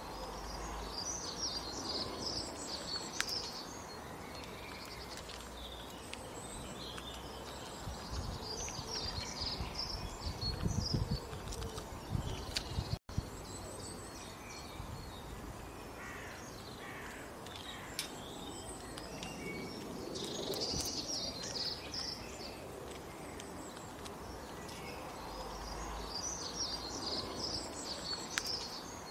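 Small songbirds chirping and singing in short bursts over a steady outdoor background hiss, with a few low rumbles about a third of the way in.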